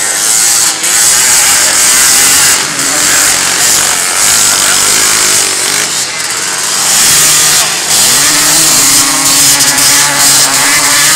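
Several three-wheeled ATC race engines revving hard together, their pitch rising and falling, with one engine climbing sharply in pitch about eight seconds in.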